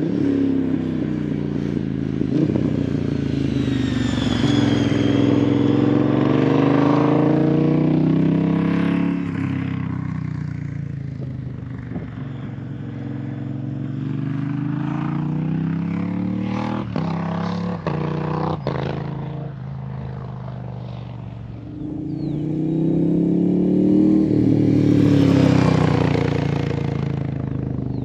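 Moto Guzzi V100 transverse V-twin running through an aftermarket exhaust, its pitch rising under acceleration and falling back twice. Several sharp cracks come near the middle.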